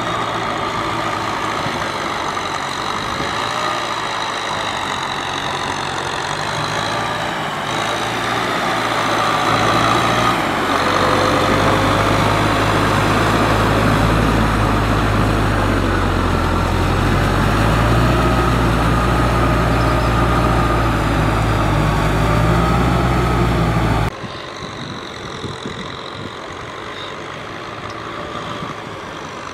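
Diesel tractor engine running steadily while pulling a rotary tiller through deep paddy mud. It gets louder and closer partway through, then drops suddenly about two-thirds of the way in to a fainter, more distant engine.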